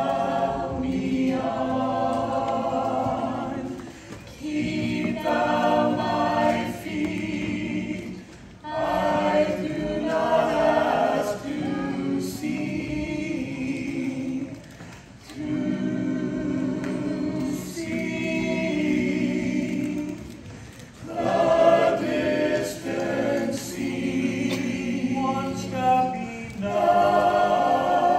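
Small mixed choir of men's and women's voices singing a hymn in parts, a cappella. The chords are held in long phrases, with a short break for breath between each.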